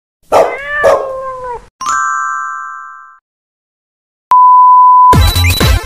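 A string of intro sound effects: two short animal cries, each falling in pitch, then a chime that rings and fades away. A click follows, then a steady high test-tone beep of the kind played over TV colour bars, cut off near the end by electronic dance music with a heavy beat.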